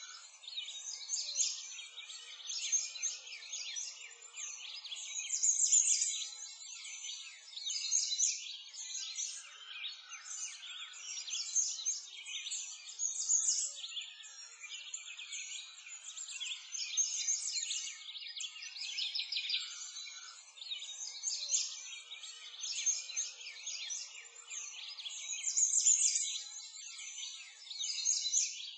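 Many small birds chirping and singing over one another in a continuous, dense chorus that swells and dips.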